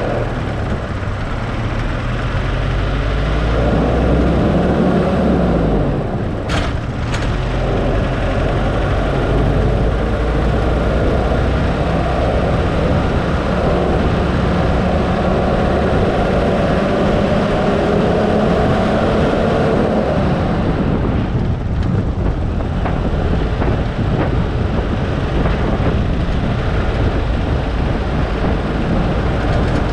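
Road vehicle engine and road noise while driving. The engine tone climbs slowly as it pulls and fades away about two-thirds of the way in, with a brief sharp knock about seven seconds in.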